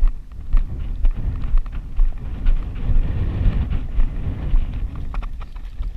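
Schwinn mountain bike rolling over a rough crushed-rock track: tyres crunching on gravel with frequent knocks and rattles as it bounces over bumps, and wind buffeting the microphone.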